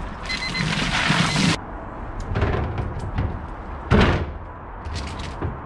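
Ice water sloshing and splashing in a plastic wheelie bin as a man dunks under, with short electronic beeps over it, cut off abruptly about one and a half seconds in. Then the bin's plastic lid is shut with a loud thud about four seconds in, among lighter knocks.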